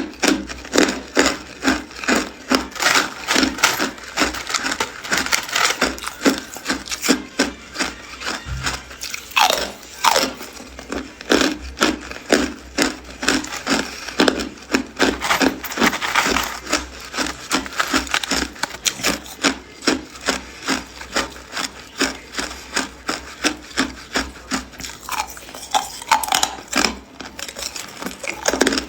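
Hard clear ice being bitten and chewed close to the microphone: a continuous run of sharp, brittle crunches, about two a second.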